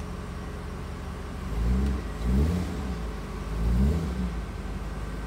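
Mercedes-Benz 500SL's 5.0-litre DOHC V8 idling through a one-off stainless steel exhaust, blipped three times: about two seconds in, again half a second later, and near the four-second mark.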